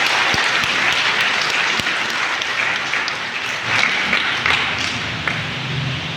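Congregation applauding, a dense patter of clapping that thins out near the end.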